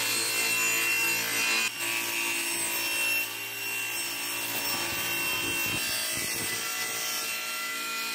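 Sliding-table circular saw running and ripping cherry boards lengthwise, a steady whine from the blade over the noise of the cut.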